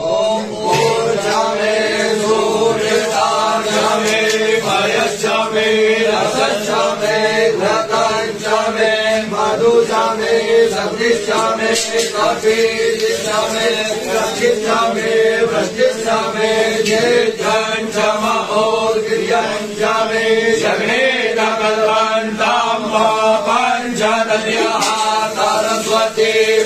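Hindu devotional chanting of mantras by voices in a steady rhythm over a sustained drone.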